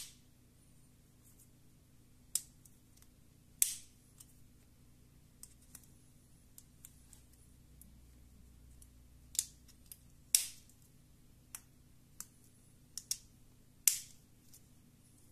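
Sharp plastic clicks and snaps as a thin plastic pry tool is levered into the casing seam of a Plantronics Voyager Edge Bluetooth headset. About four loud snaps a few seconds apart among fainter ticks.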